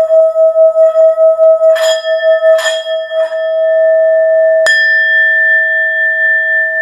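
Singing bowl ringing with a steady hum that wavers about four times a second, with two brief rasping sounds partway through. About two-thirds of the way in comes a sharp strike, after which a higher ring joins and the hum holds steady.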